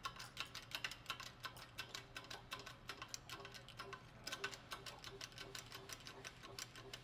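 Hydraulic shop press being pumped by hand, its bottle jack giving faint, fast clicking as it pushes a Goulds pump shaft out of its bearing end cap.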